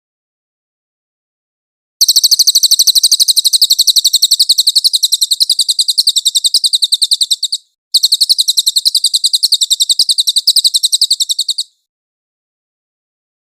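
Cililin bird song from a masteran tutor recording: a very fast, high trill of clipped repeated notes in two runs, about five and four seconds long, split by a short break, with silent gaps before and after.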